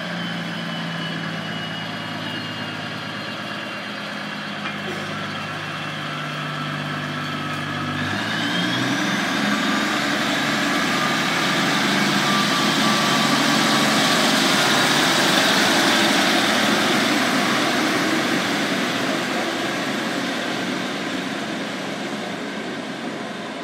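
Class 153 diesel railcar's Cummins engine idling steadily, then opening up about eight seconds in with a rising whine as the unit pulls away. It grows louder as it passes close by, then fades as it moves off.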